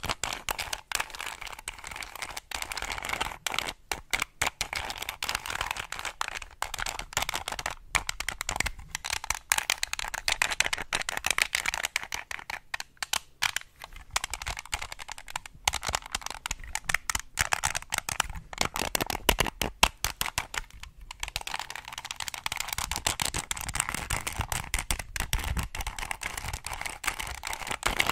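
Small plastic Rubik's cube handled and twisted close to the microphone: quick, irregular clicking and clattering of its turning layers, with a few brief pauses.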